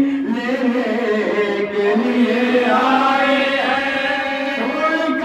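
Men's voices chanting a Shia Muharram lament recitation, long drawn-out notes that step and slide slowly up and down in pitch without pause.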